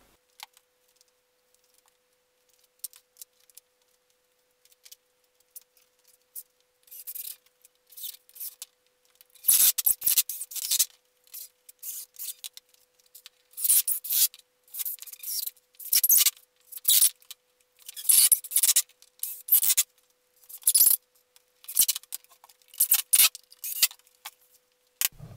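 Handling noise from assembling a wooden coffee table: irregular short knocks, scrapes and rustles as the tabletop and legs are moved and set down on a cloth-covered workbench, starting after several seconds of near silence.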